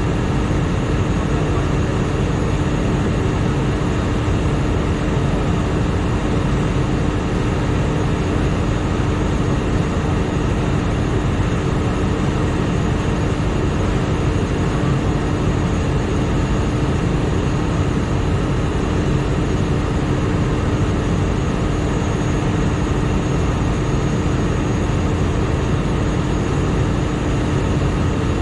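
TDS-11SA top drive running steadily on test after overhaul: a constant machine hum with one steady mid-pitched tone over an even rushing noise.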